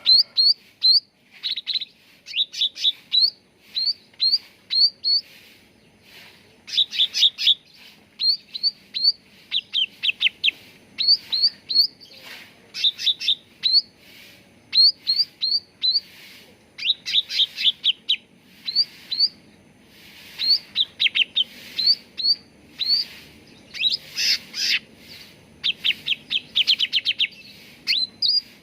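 Cucak ranting songbird calling in quick bursts of short, sharp chirps, each note sweeping down. A new burst comes about every second or two.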